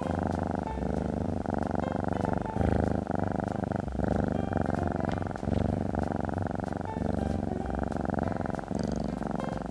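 Domestic cat purring steadily, the purr broken by short dips about once a second.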